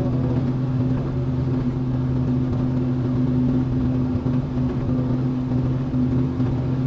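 Small excavator's diesel engine running at a steady speed with an even hum.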